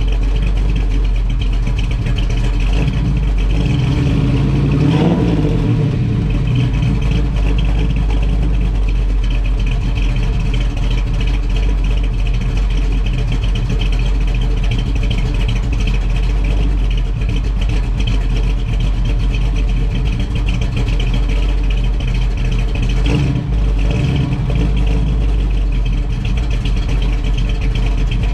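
Built 1970 LT-1 350 small-block Chevy V8 with dual quads and a 280 cam, idling through 2½-inch exhaust and Flowmaster mufflers while warming up after a cold start. It revs up briefly about five seconds in, then settles back to a steady idle.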